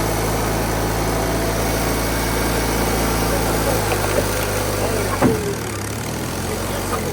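An engine idling steadily, with a short knock about five seconds in, after which the deepest part of the rumble drops away.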